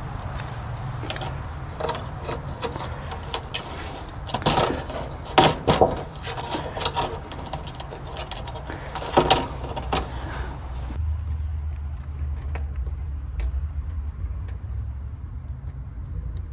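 Metal tools and parts clinking and knocking as they are handled, over a steady hiss. About eleven seconds in the hiss cuts off, leaving a low steady hum with a few faint clicks.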